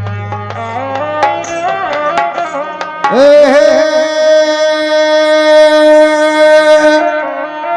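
Rajasthani devotional folk music: a run of quick drum strokes and short pitched notes, then, about three seconds in, one long held note that wavers at its start and lasts about four seconds before the quick notes return.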